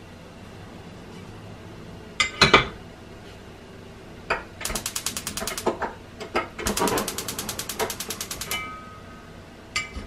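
Gas stove's spark igniter clicking rapidly, about ten clicks a second, in two runs of a second or two as the burner knob is turned, with a couple of sharp knocks before and near the end.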